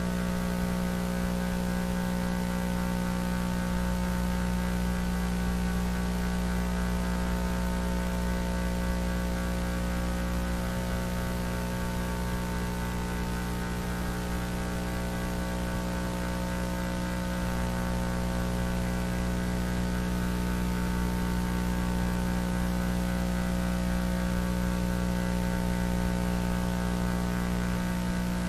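Steady electrical mains hum with a stack of overtones over a layer of static hiss, unchanging throughout: the buzz carried in place of the alert audio in a failed Emergency Alert System test.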